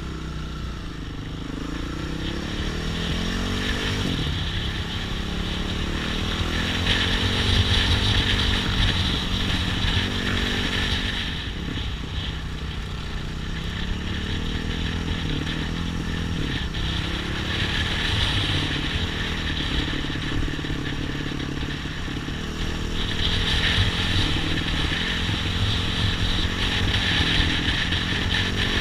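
Off-road trail motorcycle engine riding along a dirt track, its revs rising and falling over and over as the rider works the throttle and gears. A hiss rides over it and swells at times.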